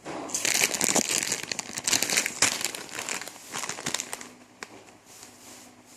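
Plastic instant-noodle packet crinkling as it is handled, a dense run of crackles and clicks that thins out after about four seconds.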